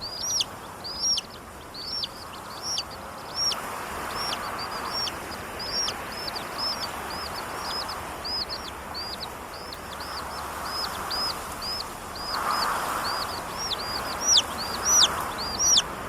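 Chicks peeping in a steady stream of short, high chirps, several a second. Wind rushes underneath and gusts louder about four seconds in and again around twelve to thirteen seconds in.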